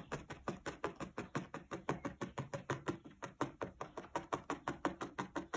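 A felting needle stabbing repeatedly through loose blue wool fibres and a felt backing into a foam pad, a quick, even tapping about six or seven times a second as the fibres are felted in.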